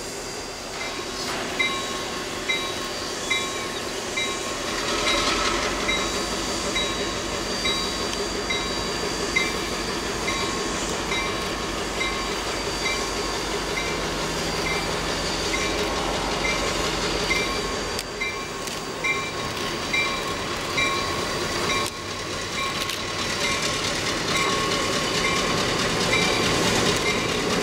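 A locomotive bell ringing steadily, a little more than once a second, while Western Pacific F7A diesel 918-D rolls slowly past with its engine running. Steam hisses from the 2-6-2T steam locomotive's cylinder cocks.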